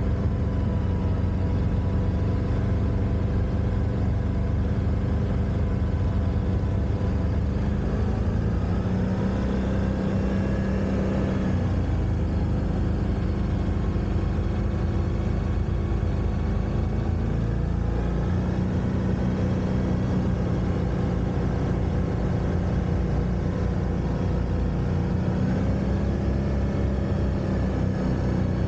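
Quad bike (ATV) engine running continuously, its pitch rising and falling several times as the throttle is opened and eased.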